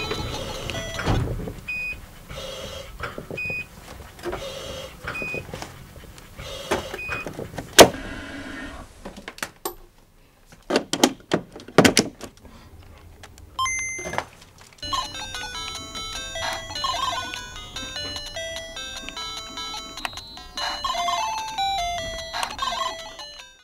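A single high electronic beep repeating about every second and a half, like a hospital patient monitor, over a soft background, then a sharp loud click about eight seconds in and a few scattered clicks and knocks. From about fifteen seconds, electronic music with a quick stepped melody.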